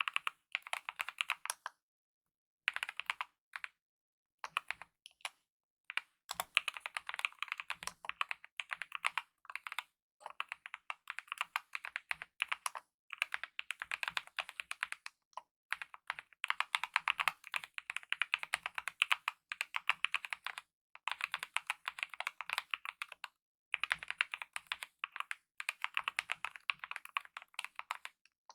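Typing on a mechanical keyboard with lubed optical linear red switches and DSA-profile keycaps: fast runs of key presses broken by brief pauses.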